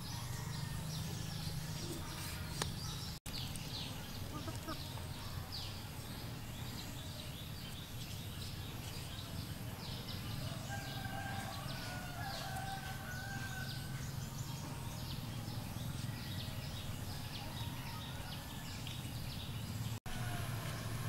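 Rural outdoor ambience: a steady low hum with many short high chirps, and a chicken calling in the distance for a few seconds about halfway through.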